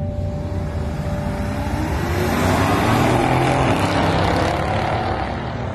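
Two cars accelerating hard down a drag strip. Their engine noise swells as they pass the grandstand, loudest from about two to four and a half seconds in, then starts to fade down the track.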